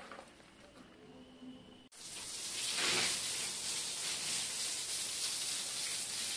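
Water spraying from a hand-held hose onto a concrete floor: a steady hiss that starts abruptly about two seconds in and is loudest soon after.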